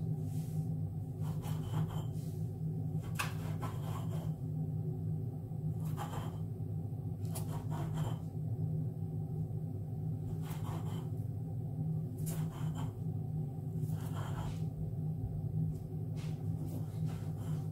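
A drinking glass pressed down through rolled dough onto the countertop, cutting out small rounds: soft irregular knocks and rubs every second or two, over a steady low hum.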